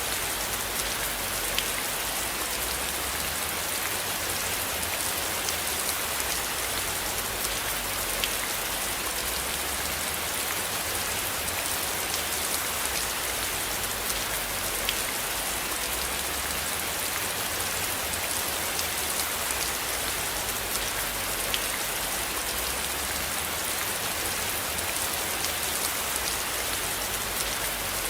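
Steady rain falling, with a few louder single drops ticking now and then over a low rumble underneath.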